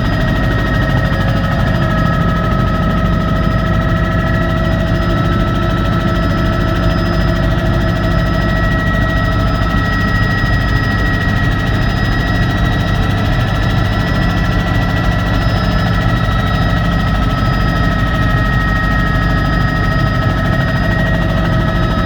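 Helicopter in flight heard from inside the cockpit: a steady, loud drone with several constant high whining tones over it, holding level throughout.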